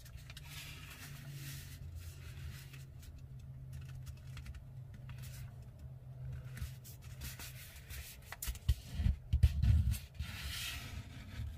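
A sheet of paper being folded by hand: soft rustling and sliding of the paper, with a few dull thumps about eight to ten seconds in as the fold is pressed flat against the table.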